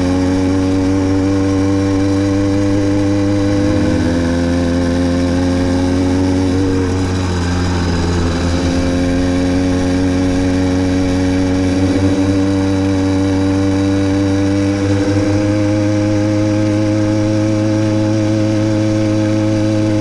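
Motorized bicycle's kit engine running hard at a steady high speed. Its pitch sags about seven seconds in, then slowly climbs back.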